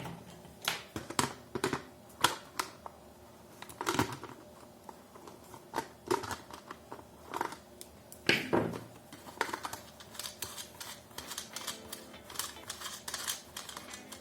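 Irregular clicks, taps and small knocks of plastic and metal parts being handled as the mounting nut of a wall clock's quartz movement is undone.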